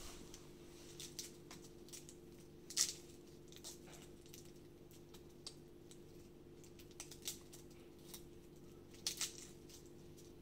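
Garlic being peeled by hand: faint papery crackles and sharp little clicks of skin and cloves, the loudest about three seconds in and a few more near the end, over a steady low hum.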